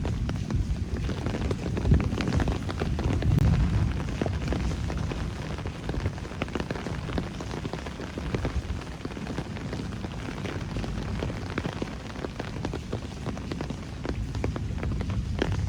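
Rain falling on city streets and surfaces, many separate drops ticking and splashing close by over a steady hiss. A low rumble sits under it, heavier in the first few seconds.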